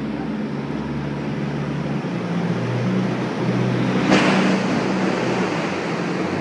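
A small boat's motor running steadily at low speed, with water washing along the hull; the motor's pitch shifts slightly about two seconds in, and a brief rush of noise comes about four seconds in.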